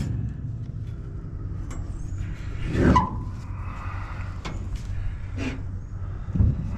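Vehicle noise: a steady low rumble, with a louder pass that rises and falls about three seconds in, and a short thump near the end.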